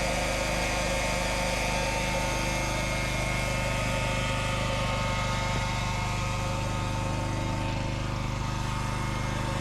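An engine running steadily at an even idle, with a regular low pulsing.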